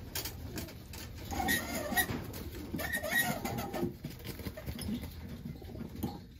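Domestic homing pigeons cooing in their loft, with a louder, busier stretch between about one and four seconds in.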